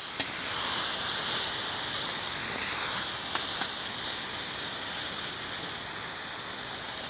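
Tomato-and-vegetable mixture sizzling and boiling hard in a cast-iron kazan over a fire on full heat: a steady hiss that eases slightly towards the end. Two faint ticks a little past halfway.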